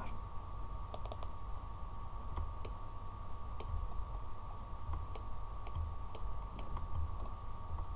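Scattered clicks of a computer mouse, with a quick cluster about a second in, over a faint steady hum.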